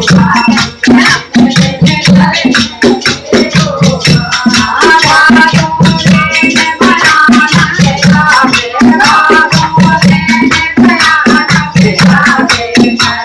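Loud music with a fast, dense percussion beat and a melody line over it.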